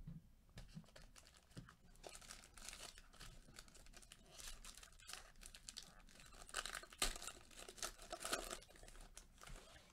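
Crinkling and tearing of the foil wrapper of a Panini Court Kings basketball card pack as gloved hands rip it open and pull the cards out; faint, in many short crackles.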